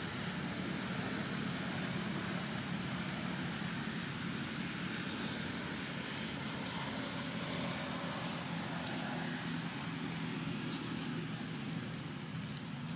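Steady low rumble with an even hiss, the kind of background made by distant road traffic, with a few faint ticks near the end.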